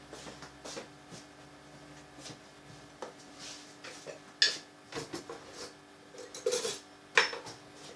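Kitchen containers being handled on a table: scattered light knocks and clinks, the sharpest about four and a half and about seven seconds in.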